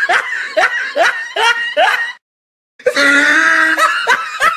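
An edited-in comic voice clip: a voice crying out in quick upward yelps, about two to three a second, that breaks off about two seconds in. After a short silence a held voice comes in.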